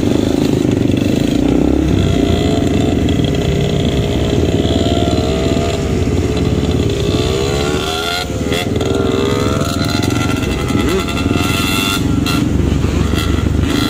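Dirt bike engines running on the move, their revs rising and falling with the throttle.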